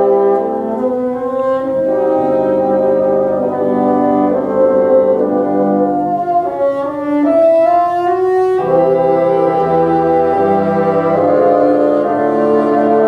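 Bassoon ensemble playing sustained chords in several parts. About seven seconds in, one line slides upward, and a new chord enters sharply at about eight and a half seconds.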